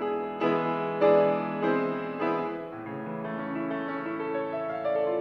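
Grand piano played solo: four loud, accented chords struck a little over half a second apart, then softer, held notes.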